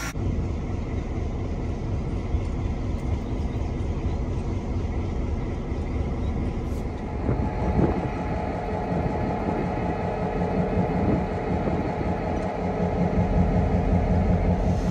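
Burlington Northern BN-1 diesel locomotive with its engine running, a dense steady rumble; about halfway through it grows louder and a steady higher hum joins it.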